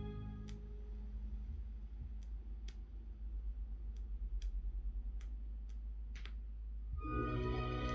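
Vinyl record surface noise in the silent groove between tracks of an original pressing: scattered pops and clicks over a steady low rumble. Music starts again about seven seconds in.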